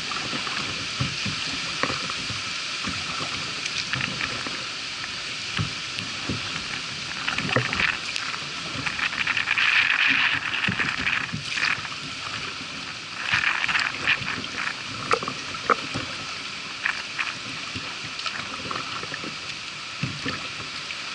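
Kayak moving through floodwater: water splashing and lapping at the hull and paddle strokes dipping in, with scattered small knocks over a steady hiss. Louder splashing comes in spells around eight, ten and thirteen seconds in.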